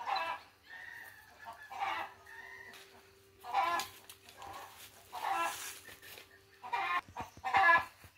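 Backyard chickens clucking noisily, about six loud calls a second or so apart. It is the hens' usual racket; no egg has been laid and nothing is wrong.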